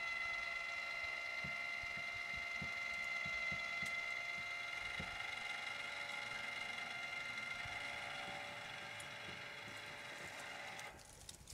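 Electric motor of a motorized satellite dish mount whining steadily as it swings the dish along the satellite arc, then stopping abruptly near the end.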